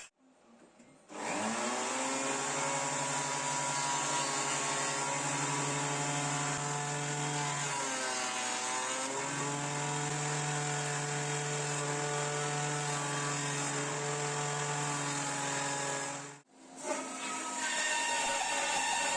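Power tool motor starting up and running steadily, its pitch dipping briefly about halfway through, then cutting off abruptly near the end.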